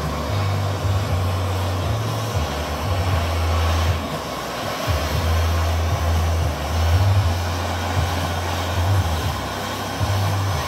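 Handheld gas blowtorch burning steadily, a continuous rushing flame noise with a low, wavering rumble.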